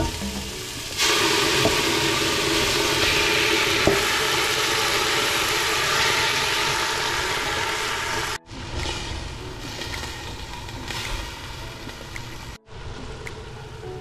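Beef chunks hitting hot oil in a stainless pressure cooker, sizzling loudly from about a second in. Later the sizzle is quieter, with small clicks of a spoon as the searing meat is stirred.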